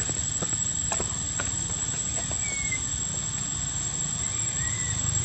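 Outdoor ambience: a steady low rumble and a steady high-pitched whine, with a few faint clicks in the first second and a half and two short falling chirps, one a little over two seconds in and one near the end.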